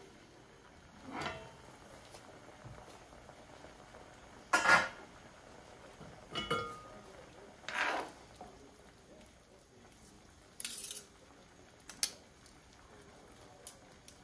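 Cookware clattering: metal tongs, a glass pan lid and a stainless steel colander knock against a frying pan in about half a dozen separate clunks and clinks. The loudest comes about four and a half seconds in, and one at about six and a half seconds rings briefly.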